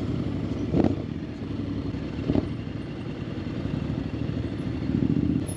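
Honda X-ADV 750's parallel-twin engine running steadily at low speed on a rough dirt track, with two brief knocks, about one second and two and a half seconds in.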